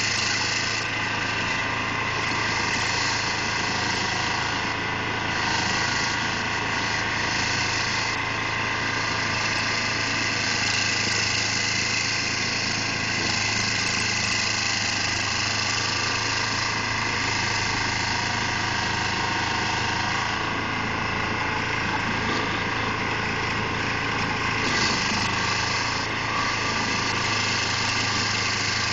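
Carlton SP4012 stump grinder running steadily at working speed, its cutter wheel grinding into a stump.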